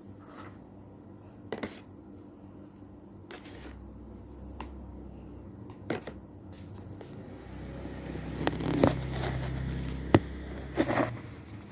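Close handling noises: scattered sharp clicks and knocks, a few of them loud, the loudest in the last few seconds, over a low rumble that builds from about a third of the way in.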